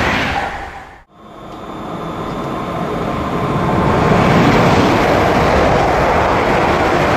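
Passing electric train noise fades out to almost nothing about a second in, then a second train pass swells in over the next few seconds and holds loud and steady.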